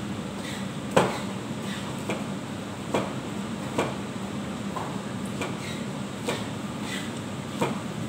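Cleaver knocking on a cutting board as a cucumber is sliced, about one chop a second at an uneven pace, the loudest about a second in. A steady hum underneath.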